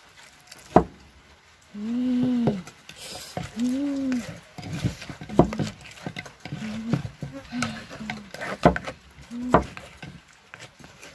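Sharp knocks and small clicks of a wooden pestle and spoon in a mortar while papaya salad is mixed. Several short rising-and-falling voice-like calls sound between them, the longest about two seconds in.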